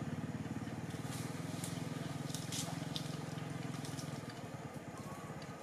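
A small engine running at idle with a fast, even low putter that fades away about four seconds in, with a few sharp clicks over it.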